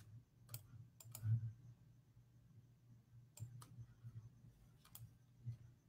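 Faint, scattered computer clicks, about half a dozen spread irregularly over several seconds, from keys and mouse being worked while links are pasted in.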